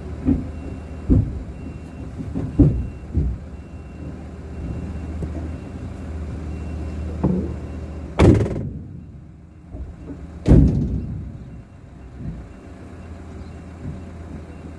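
A steady low engine hum from inside a parked vehicle, broken by scattered knocks and thumps; the two loudest, sharp door-like slams, come about eight and ten and a half seconds in.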